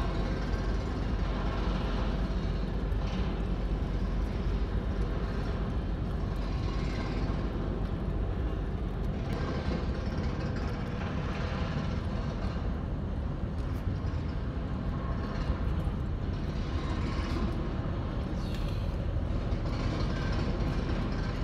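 Steady low rumble of heavy engines, with hissing swells rising and falling every few seconds. It is the din that the angler calls a nearby construction site being very noisy.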